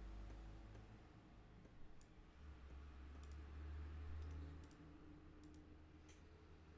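Near silence: room tone with a low hum and a handful of faint, scattered computer mouse clicks.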